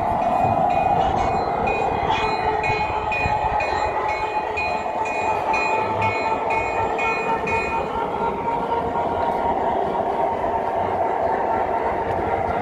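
Large-scale model train running along its track, heard from a car it is carrying: a steady rolling rumble with a hum and regular clicking, about two clicks a second, that stops about eight seconds in.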